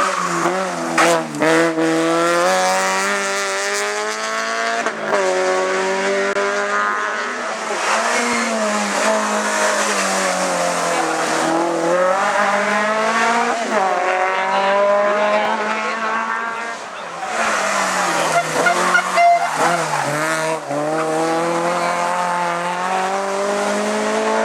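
Race car engine at full throttle on a hillclimb, its pitch climbing through each gear and dropping at each shift. It backs off and picks up again several times as it goes through the corners.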